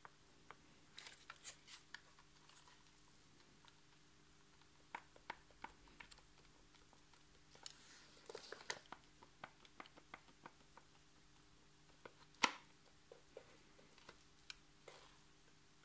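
Faint scattered clicks and rustles of the opened gear housing of a Bosch GWS 18V-15 C angle grinder being turned over in the hands, with one sharper knock about twelve seconds in.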